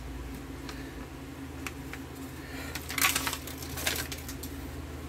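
Plastic ration packaging being handled: scattered light clicks and crinkles, with two louder bursts of crinkling about three and four seconds in.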